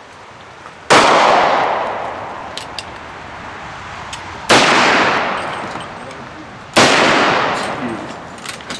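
Three gunshots, the first about a second in, the next two about three and a half and then two seconds later. Each rings out and fades over a second or two.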